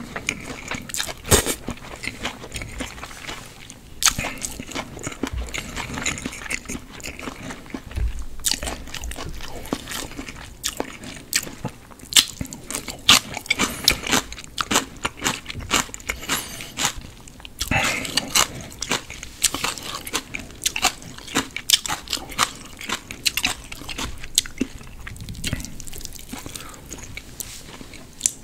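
Close-miked eating of sauced makguksu (buckwheat) instant noodles: slurping the strands and chewing them, wet mouth sounds with many sharp smacks and clicks.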